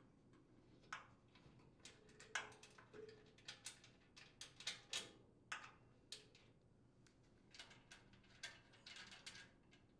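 Faint, irregular metallic clicks and taps as mounting nuts are worked off their bolts by hand and the steel discharge chute of a chipper shredder is handled.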